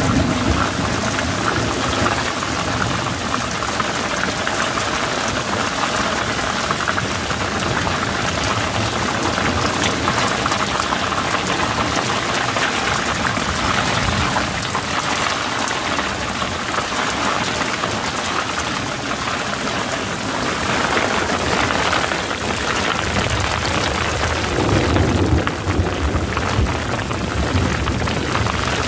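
Heavy rain falling steadily on a small sailboat's deck and canvas, with the wind picking up and gusting near the end.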